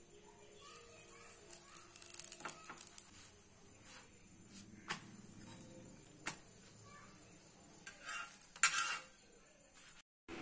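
A steel spoon clinking and scraping on a cast-iron tawa while a chapati cooks. Several separate clicks, with a louder short noisy burst near the end.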